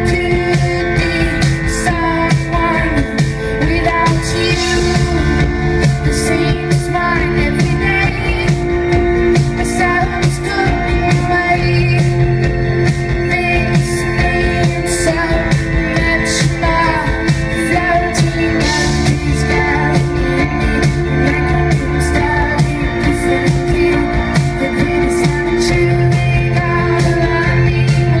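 A live pop-rock band playing: a singer's voice over piano and a drum kit, with drum hits throughout and steady held chords underneath.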